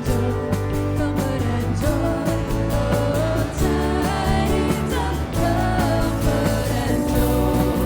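Live worship band playing a song with a singer, drums and guitar.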